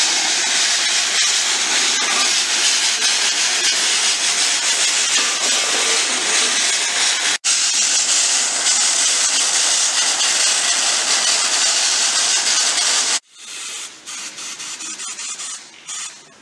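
Airless paint spray gun hissing steadily as paint is sprayed onto steel pipes, with a split-second gap about seven seconds in. The hiss stops sharply about three seconds before the end, leaving fainter, patchy noise.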